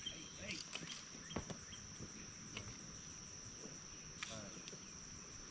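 Insects trilling outdoors: a steady high-pitched drone like crickets. There are a few sharp clicks in the first second or so and a brief rustle about four seconds in.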